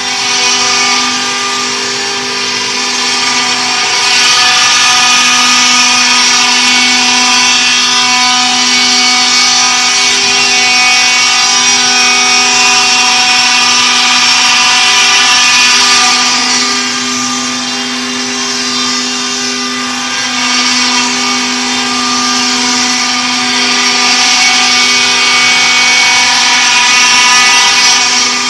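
4-axis CNC stone router spindles carving stone under water coolant spray. The spindles run with a steady whine while the cutters grind the stone with a harsh, gritty noise. The noise grows louder about four seconds in, eases for a few seconds past the middle, then rises again.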